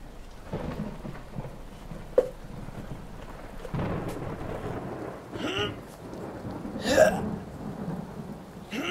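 Rain falling steadily with low thunder rumbling, a sharp click about two seconds in and two short voice-like sounds later on.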